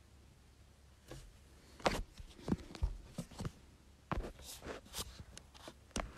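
Handling noise from a phone close to its microphone: a run of irregular knocks, taps and rubs, starting about a second in.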